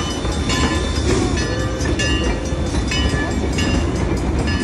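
A lit-up steam passenger train rumbling past over the rails at a grade crossing, while the crossing's warning bell rings over and over.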